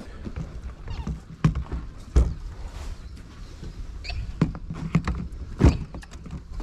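Fishing rods being handled and set into the rod holders on a boat: a scattered series of knocks and clunks, two of them louder, over wind rumbling on the microphone.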